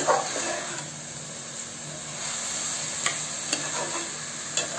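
Washed seeraga samba rice, mixed with vegetables and masala, sizzling as it is stir-roasted in a pressure cooker. A spatula scrapes through it and clicks against the pot a few times.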